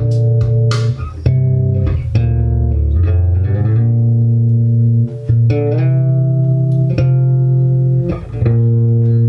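Electric P-bass played through the Trace Elliot Elf micro bass head's DI out with all EQ at noon, sounding long held notes with one note sliding down about three seconds in. The tone carries a fair amount of mid from playing on the front pickup.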